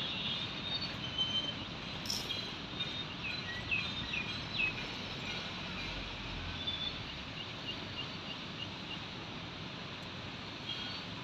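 Outdoor ambience: a steady background hiss with small birds chirping now and then, most of it in the first half.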